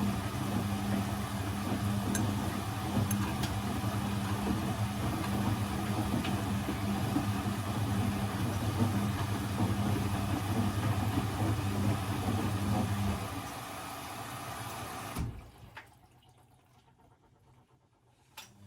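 Blomberg 240W washing machine's drum motor running with a steady hum, stopping about two-thirds of the way through. A single click follows, and then it is nearly silent.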